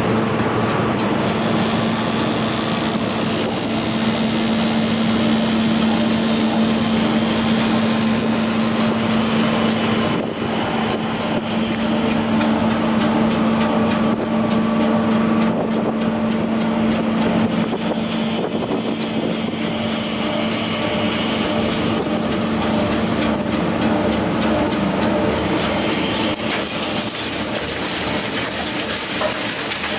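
GAZ 102 wood chipper running steadily with a constant engine hum, with a few short cracks now and then.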